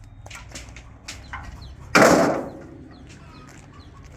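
Chickens clucking, with one loud, sudden thump about two seconds in that dies away within half a second.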